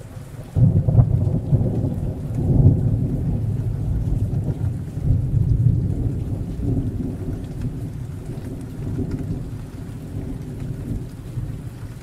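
Thunderstorm: a long, low rolling rumble of thunder swells about half a second in and slowly fades, over steady rain.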